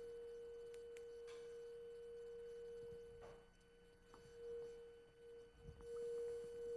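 Steady electronic sine tone at about 470 Hz, set very close to a wine glass's resonance frequency to drive it into forced oscillation. About three seconds in, the tone dips and wavers in loudness, then comes back stronger near the end.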